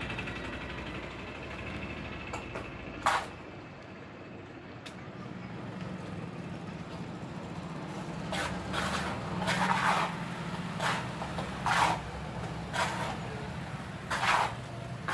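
Wet cement being pressed and smoothed by hand around a round wire-framed form: from about eight seconds in, short scraping, squelching strokes about once a second, over a steady low hum. One sharp knock about three seconds in.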